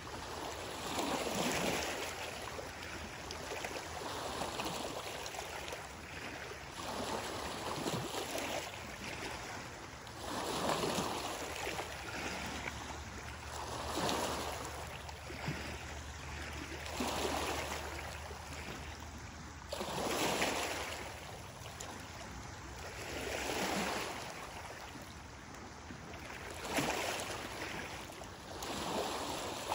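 Small lake waves lapping and washing onto a gravel and stone shoreline, each wash swelling and fading about every three seconds.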